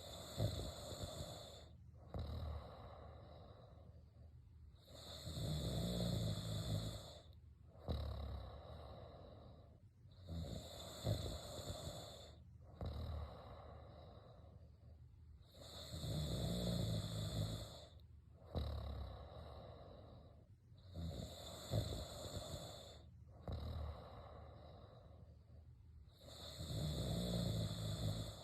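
A person snoring, a steady rhythm of about one snore every five seconds.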